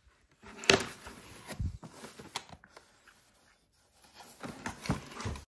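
Shoe box and packaging being handled: a sharp knock about two-thirds of a second in, then irregular rustling, tapping and small knocks, busier again near the end.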